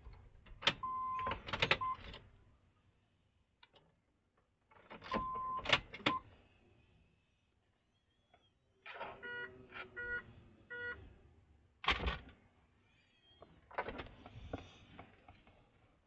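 Clicks of the ignition key and switches inside a car, with two short electronic beeps in the first six seconds and a run of three chime tones about ten seconds in.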